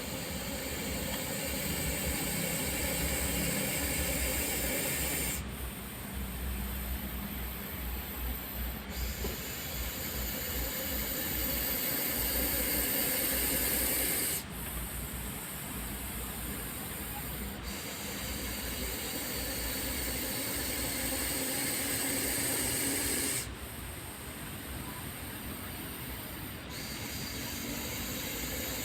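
Russell's viper hissing loudly and continuously, the hiss changing abruptly in tone every few seconds.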